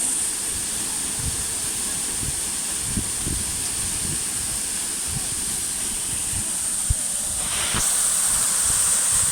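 Steady rush of falling water from the Veliki Buk (Lisine) waterfall, a tufa waterfall on the Vrelo stream, growing slightly louder near the end, with occasional low thumps on the microphone.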